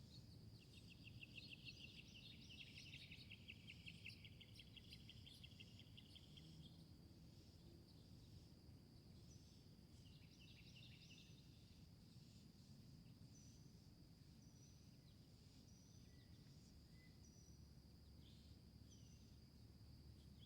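Quiet garden ambience of birdsong: a bird sings a fast trill of rapidly repeated notes for the first six seconds or so, and another shorter trill comes about ten seconds in, followed by scattered short high chirps. Under it runs a steady high insect drone.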